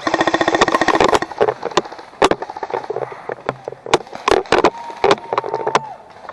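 A GoPro rattling and knocking in a loose base-plate mount: a string of sharp, irregular clacks. A loud pitched buzz fills the first second and a half, and a steady thin tone sounds for about a second near the end.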